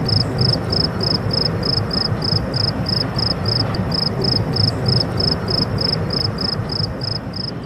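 A cricket chirping steadily, about three high-pitched chirps a second, over a continuous low rushing noise.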